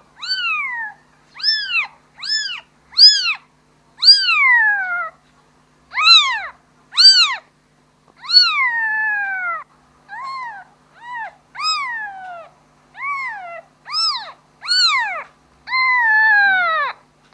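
Kitten meowing over and over, calling for its mother: high-pitched calls that rise and fall, about one a second, a few of them drawn out longer with a falling end.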